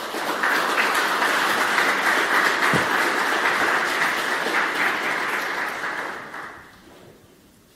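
Audience applauding: the clapping starts at once, holds steady, and dies away about six to seven seconds in.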